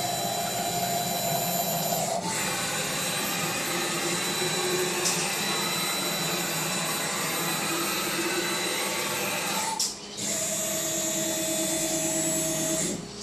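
Mini CNC machine running, its motors giving a steady whine that shifts in pitch about two seconds in as the machine changes movement. It stops briefly about ten seconds in, starts again, and stops near the end.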